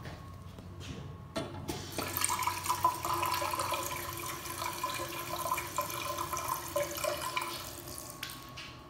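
Single-lever chrome bathroom faucet running a thin stream into a washbasin, splashing on the drain. A couple of knocks come about a second and a half in, then the water starts and dies away near the end.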